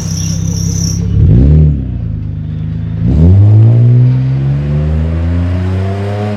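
BMW 5 Series engine revved through its exhaust for a sound check: idling, a quick blip of the throttle about a second in, then a longer rev from about three seconds in, held and slowly climbing before it drops away.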